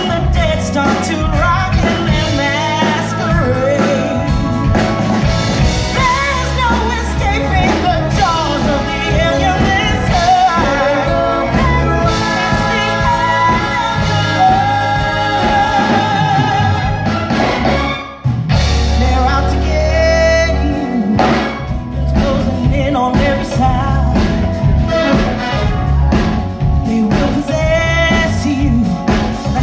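Live band performance: a singer singing into a microphone over drums and electric guitar, heard from the audience. The music drops out for a moment a little past the middle, then comes back in.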